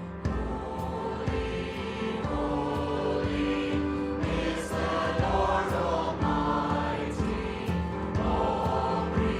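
A worship group singing a hymn with a praise band, accompanied by a steady beat.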